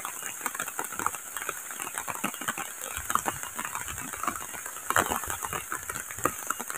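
Light rain pattering: many small irregular ticks and crackles over a steady high hiss.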